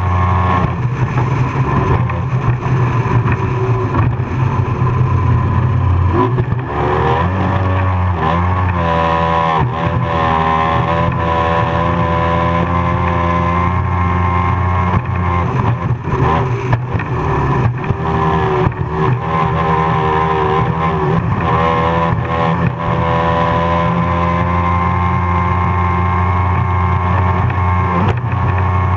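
Racing powerboat's engine running hard at full speed, its pitch wavering and dipping now and then as the hull rides over the waves, with rushing water and wind.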